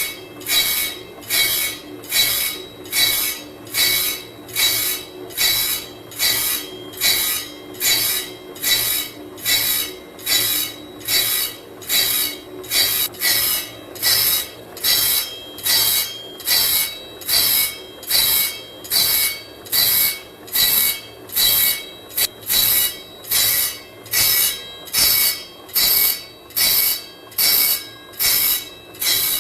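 Automatic circular saw blade sharpening machine grinding the blade's teeth one after another, a rasping stroke about three times every two seconds with a faint metallic ring, over a steady motor hum.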